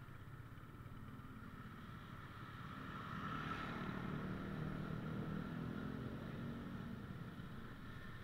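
Motorcycle engine and surrounding street traffic heard from a moving motorcycle in dense traffic: a steady engine hum that grows louder for a few seconds in the middle, then eases.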